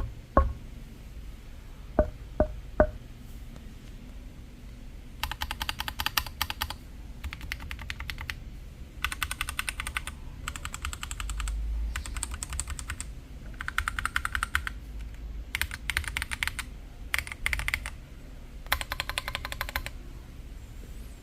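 Mechanical keyboard being typed on in rapid bursts of keystrokes, each burst lasting a second or two with short pauses between. In the first three seconds there are a few single sharp knocks before the typing starts.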